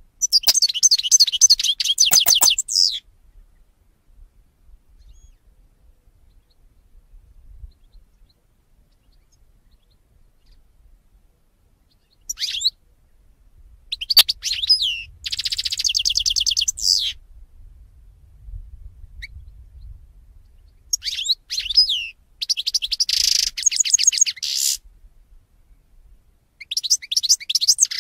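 European goldfinch singing: bursts of fast, high twittering broken by rapid trills, a few seconds each, with pauses of several seconds between them.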